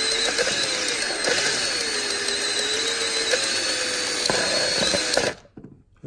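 Electric drill running, spinning a steel guitar string inside the blocked tube of a vintage Atomic coffee machine to grind out the limescale blockage. Its steady whine dips and rises slightly, then stops abruptly about five seconds in.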